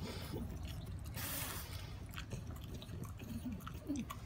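French bulldog eating soft sweet potato: scattered wet smacking and clicking mouth sounds as he licks and chews, with a short rush of breathy noise about a second in.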